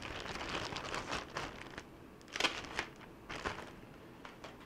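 Plastic packaging crinkling and rustling as a replacement laptop keyboard is unwrapped, busiest in the first couple of seconds with a few sharper crackles later, then tailing off.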